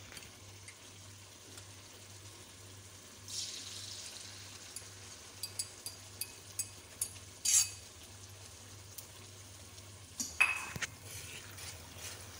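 Beaten egg poured into hot oil in a nonstick frying pan starts sizzling about three seconds in. Light clinks of a utensil come through the sizzle, then a louder metal clink near the end as a fork starts stirring the eggs. A low steady hum runs underneath.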